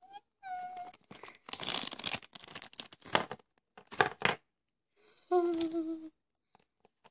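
Plastic bubble wrap crinkling and tearing as it is pulled open by hand, with a few loud crackles. A girl hums a steady note briefly, about five seconds in.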